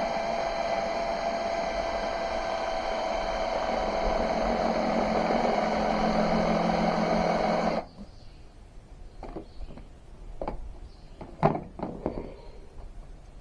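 Electric drill running steadily and cutting off abruptly about eight seconds in, followed by a few scattered clicks and knocks.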